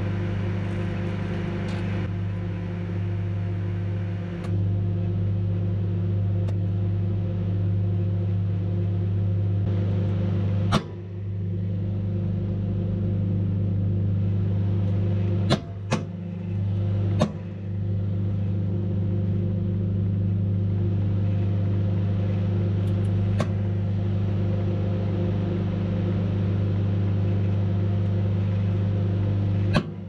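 Microwave oven running with a loud, steady low hum while a portable DVD player cooks inside it. Sharp snaps cut through the hum about a third of the way in and three more around the middle, each briefly interrupting it.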